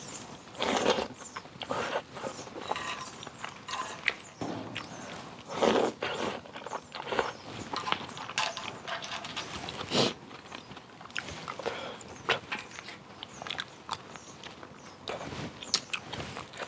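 Close-up eating sounds from clam kalguksu: a few short slurps of noodles and broth, with chewing and scattered light clicks in between.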